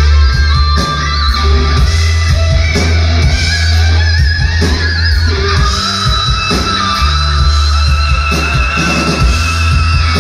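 Live rock band playing loud through a large PA: electric guitar with long held and bending lead notes over a heavy, steady bass.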